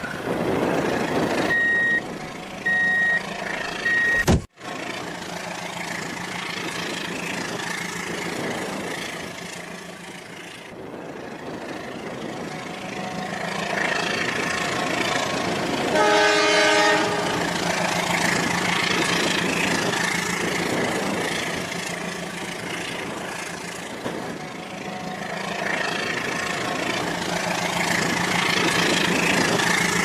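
Rail King battery-powered toy train running on plastic track, its motor and wheels making a steady hum. Three short high electronic beeps come about two to four seconds in, and a brief electronic horn toot sounds about halfway through.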